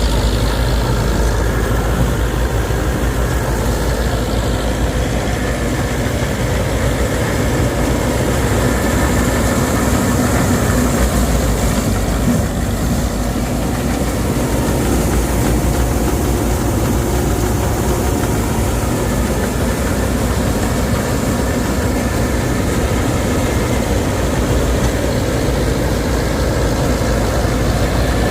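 Heavy harvesting machine's engine running steadily with a deep rumble, dipping slightly in level about halfway through.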